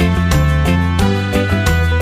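Background music: upbeat instrumental with a steady beat and pitched melody.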